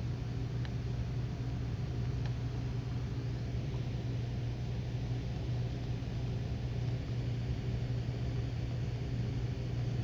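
Steady low background hum with no change in pitch, with a couple of faint ticks early on.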